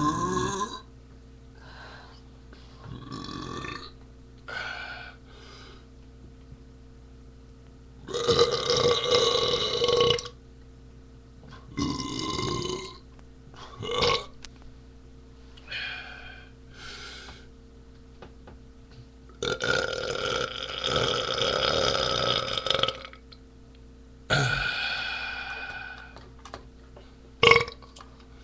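A man belching over and over, gassy from chugging beer: a string of separate burps of varying length with short pauses between. The longest and loudest lasts about three seconds, a little past two-thirds of the way through, and another long one comes about a third of the way in.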